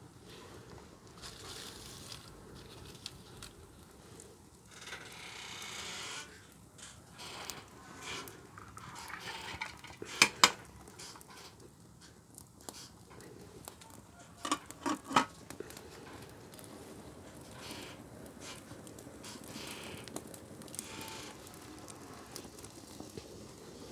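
Cookware being handled: scattered clinks and knocks of a pot and bowl, loudest as two sharp clinks about ten seconds in and a quick run of three a few seconds later, with soft rustling between.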